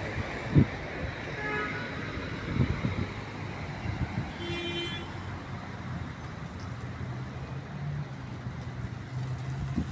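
Street traffic running below, with two short car-horn toots about 1.5 s and 4.5 s in, and a low steady vehicle engine drone through the second half.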